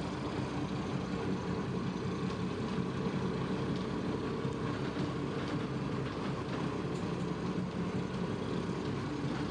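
Twin Perkins 145 hp diesel engines idling, a steady low hum with a few even tones, heard from inside the wheelhouse.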